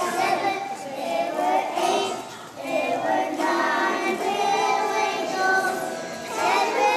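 A group of young children singing a song together, with a short break between phrases about two and a half seconds in.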